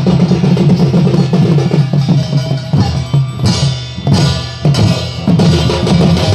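Loud drumming at a steady, busy beat, with a brighter, hissier clashing stretch about halfway through.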